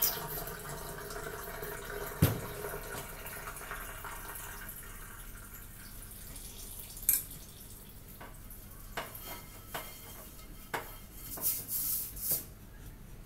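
Metal pot being handled at a sink: a fading trickle of water, a single sharp metal knock about two seconds in, then scattered light clinks as baking-soda powder is spooned onto the pot's burnt bottom. A short spell of hand scrubbing on the pot comes near the end.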